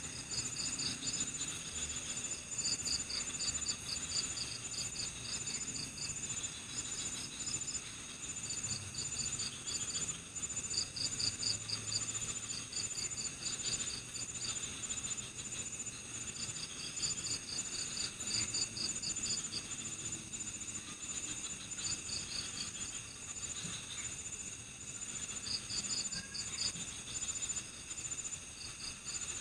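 Chorus of crickets and other night insects: a continuous high-pitched trill, overlaid by runs of rapid chirps that come in short bursts every few seconds.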